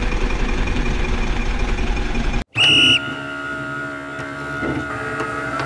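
A steady engine-like rumble that cuts off abruptly about two and a half seconds in. A loud high whistle-like tone follows for half a second, then a steady mechanical hum of several tones.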